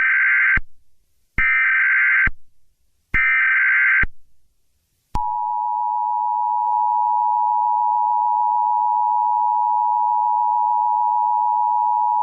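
Emergency Alert System tones: three short bursts of SAME header data, then, about five seconds in, the steady two-tone attention signal.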